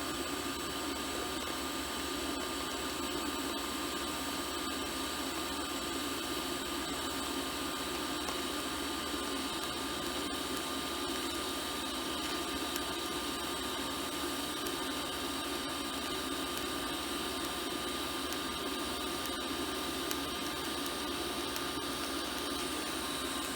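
TIG welding arc on mild steel plate, running steadily with an even hiss and a thin high whine, together with the welding machine's hum. The thin top sheet is blowing out at one corner while the thick base plate is slow to heat.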